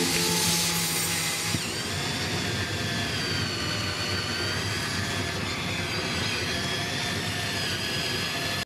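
Cordless drill running a hole saw into a particleboard panel: a steady whirring grind with a high whine that wavers in pitch as the cutter bites.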